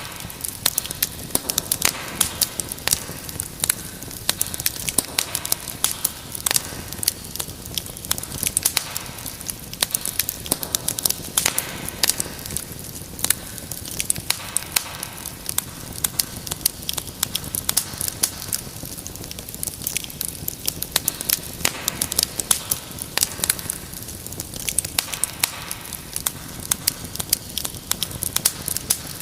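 Wood fire crackling in a fireplace: a continuous hiss of burning with frequent sharp, irregular pops and snaps.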